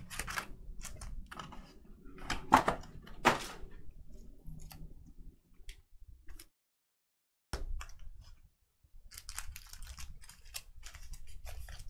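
Hands handling a box and packs of basketball cards: a run of small clicks, taps and rustles, with two sharper clicks about two and a half and three and a half seconds in.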